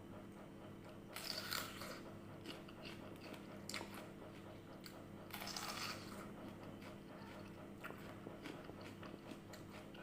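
Close-up biting and chewing of crisp, juicy red water apple (wax apple), with two louder crunchy bites, about a second in and again around five and a half seconds, and small wet chewing clicks between them.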